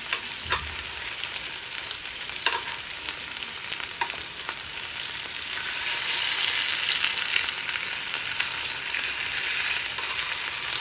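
Oil sizzling steadily around two masala-coated red snapper shallow-frying in a pan, with a few light clicks of a spoon against the pan as the fish are turned. The sizzle grows louder about six seconds in, once a fish has been flipped.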